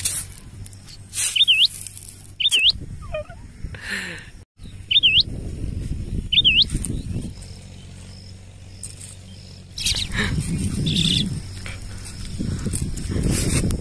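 Four short, high bird-like chirps in two pairs, each a quick upward flick that falls back. Low rustling noise runs between them and grows near the end.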